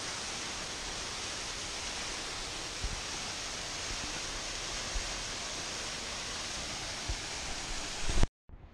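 Waterfall spilling down a rock face: a steady, even rushing hiss of falling water, with a few faint low bumps. It cuts off suddenly near the end.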